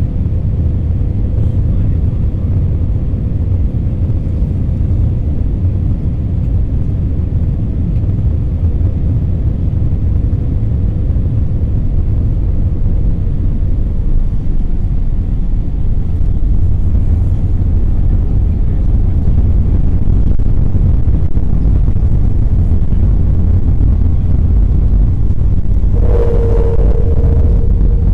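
Steady low rumble inside the cabin of an Airbus A321-200 airliner in motion. It grows a little louder past the middle, and a steady hum comes in near the end.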